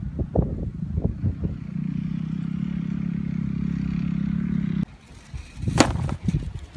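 A small vehicle engine running steadily with a low hum, with a few rattling clicks in the first second and a half. It cuts off abruptly about five seconds in, and a sharp whack follows about a second later: a stick hitting a paper piñata.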